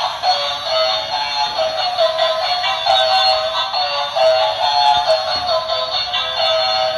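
Electronic melody played through the small built-in speaker of a Bumblebee transforming toy car, with no bass and a tune that steps quickly from note to note.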